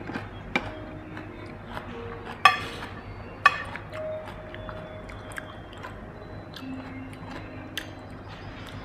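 Eating at the table: chewing and a few sharp clinks of a spoon against a glass serving bowl, the loudest two about a second apart midway, over faint background music with long held notes.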